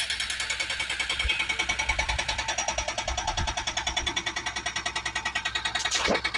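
Hydraulic breaker on an excavator arm hammering, a fast even run of about nine blows a second. A brief swish near the end.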